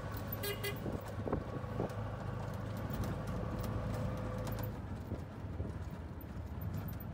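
Auto-rickshaw's small engine running steadily while under way, heard from inside the open cab, with the body and frame rattling and clicking over the road.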